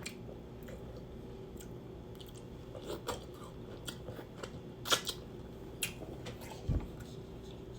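Person eating seafood boil close to the microphone: chewing with scattered sharp mouth clicks and smacks, and a soft low thump near the end.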